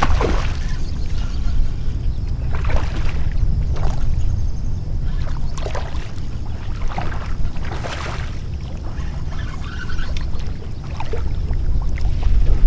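A hooked carp splashing and thrashing at the surface as it is played in close to the bank, in irregular bursts of splashing, over a steady low rumble.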